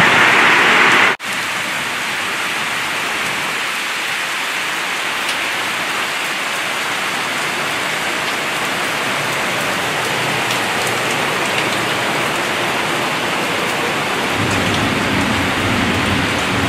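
Torrential tropical rain pouring on a motor yacht's deck, a steady dense hiss. About a second in it cuts out for an instant and comes back quieter, and a low rumble builds near the end.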